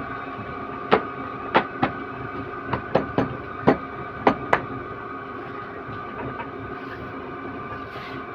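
Steady hum of a running paper-cutting guillotine, with about eight sharp knocks in the first half as a stack of notebooks is tapped on the steel table to square its edges.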